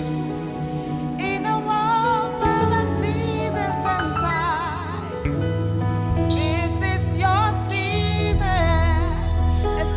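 Gospel music: voices singing a melody with vibrato over sustained keyboard and bass chords, with a light shaken-percussion rattle.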